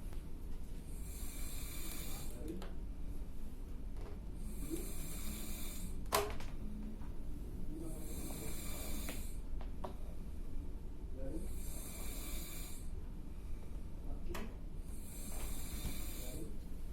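A person snoring loudly in deep sleep: a steady, rhythmic rumbling snore with a hissing breath about every three and a half seconds. There are a few sharp clicks, the strongest about six seconds in.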